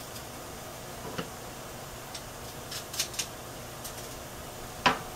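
Light metal clicks and taps of kitchen utensils working at a sauté pan, a few scattered and one sharper click near the end, over a steady faint hiss.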